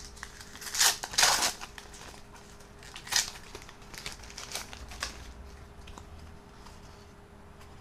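Gold foil sachet of FIFA 365 trading cards being torn open and crinkled. The loudest crackling rips come about a second in, with a shorter one around three seconds, then fainter rustling.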